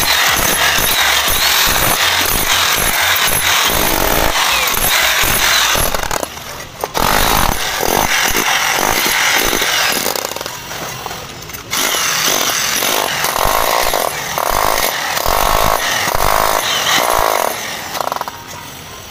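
Corded electric demolition hammer chiselling into a concrete floor. It runs in long bursts, with short pauses about 6 seconds in and about 10 to 12 seconds in, and stops near the end.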